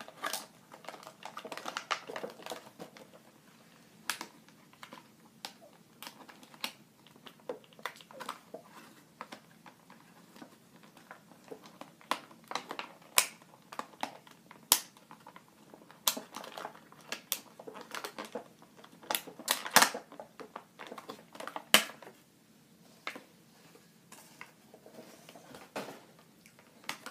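Irregular clicks, taps and rustles of a plastic action figure and its packaging being handled as the figure is worked free, with a few sharper clicks in the middle.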